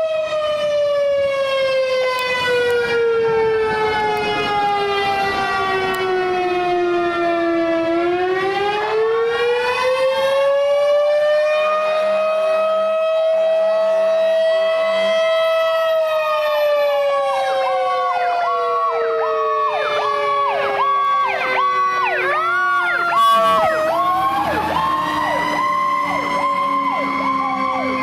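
Fire station house siren winding slowly down and back up in long wails. Over it in the second half, a fire truck's electronic siren pulses rapidly at a higher pitch. A low pulsing horn-like tone sounds briefly midway.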